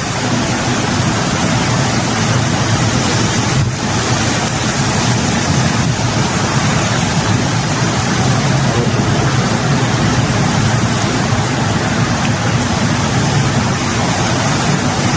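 Loud, steady rushing of water, as from heavy rain or floodwater, with a brief dip a little under four seconds in.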